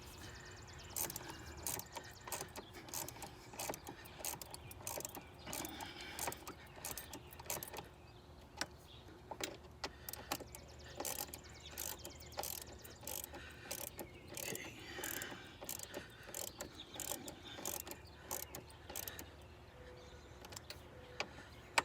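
Hand ratchet wrench clicking in short, irregular runs, with light metal clinks of tools on parts.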